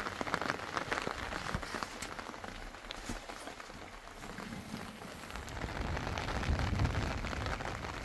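Rain falling steadily, the drops pattering in a dense run of small ticks. A low rumble builds up in the second half.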